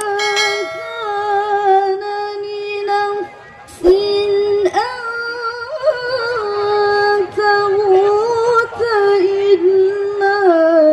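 A Qur'an reciter's voice over a stage PA, chanting in melodic tilawah style: a long held note with small ornaments, a brief breath about three seconds in, then a second long melismatic phrase that rises and wavers before falling near the end.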